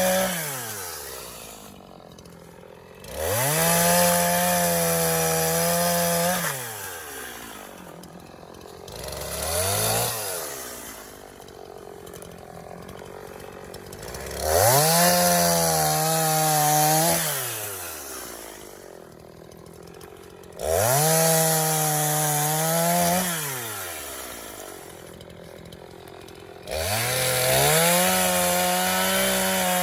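Echo two-stroke gas chainsaw cutting a log into firewood blocks. The engine holds full throttle for about three seconds per cut, several times over, then falls back to idle between cuts, with one short blip of the throttle in between.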